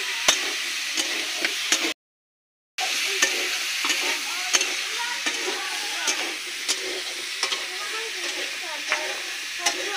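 Potatoes frying in a pan over an open fire: a steady sizzle with frequent sharp crackles and spits. The sound cuts out completely for nearly a second about two seconds in.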